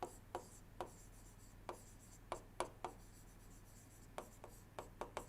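A pen drawing lines on a diagram: about a dozen faint, irregular short ticks and scratches as it strokes and taps the writing surface. A steady low electrical hum runs underneath.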